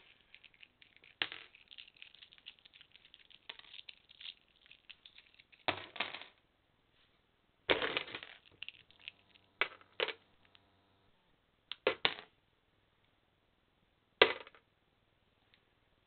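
Small plastic Lego pieces and minifigures clattering as a hand knocks them over and scatters them across a Lego plate on a plastic lid, in about seven separate bursts of clicks and rattles with quiet gaps between.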